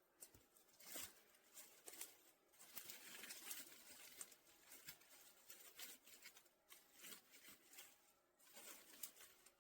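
Faint, irregular crackling and rustling of dry twigs and branches being snapped and handled to set up a fire.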